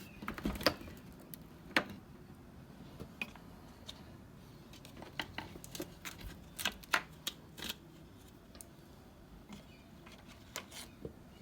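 Scattered, irregular light clicks and taps as the old intake gaskets are picked and pulled off the removed intake manifold of a 2006 Chevy TrailBlazer 4.2.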